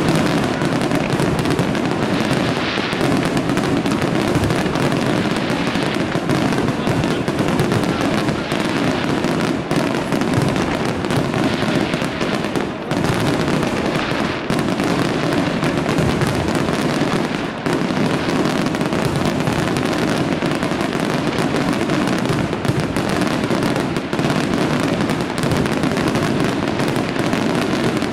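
Aerial fireworks display in a dense, continuous barrage: shells bursting in rapid, overlapping bangs and crackle with no let-up.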